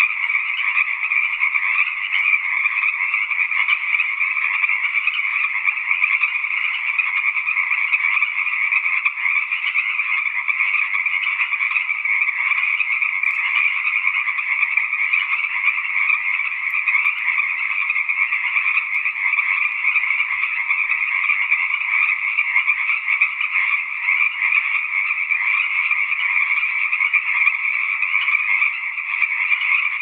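Tree frogs calling in a dense, unbroken chorus: a steady, high-pitched trilling that never pauses.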